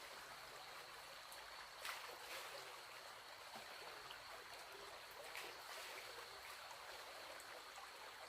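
Faint, steady rush of flowing water, with a soft knock about two seconds in and another about five seconds in.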